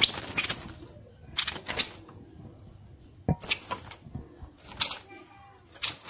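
A caged bird fluttering its wings in a round rattan cage, in about six short bursts of rustling flaps.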